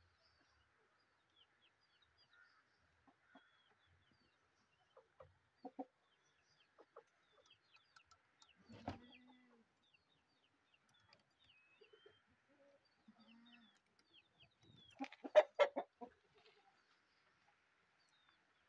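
Aseel chickens clucking now and then, sparse low clucks with long gaps between them. About fifteen seconds in there is a brief louder clatter of knocks.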